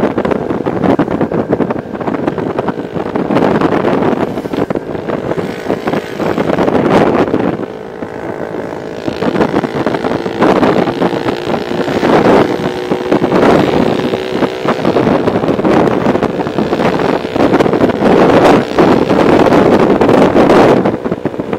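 Motorcycle riding on the road: a steady engine drone under wind rushing and buffeting over the microphone, briefly easing about eight seconds in.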